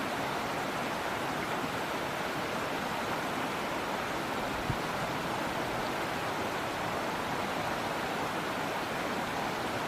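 Steady rushing of river water, an even hiss with no birdsong standing out. One soft low thump about halfway through.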